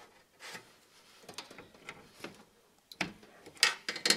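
SATA data cable being plugged in inside a PC case: scattered small clicks and scrapes of plastic connector and cable against the board and metal chassis, with a quick run of sharper clicks near the end.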